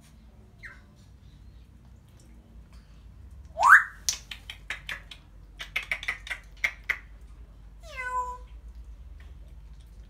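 African grey parrot vocalising: a loud rising whistle, then a rapid string of about a dozen sharp clicks and pops, then a short falling, meow-like call.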